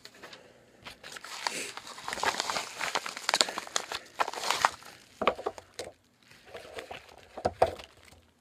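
Paper rustling and crinkling as a paper envelope and invoice are handled, dense and crackly for the first few seconds, then a few separate sharper rustles and taps.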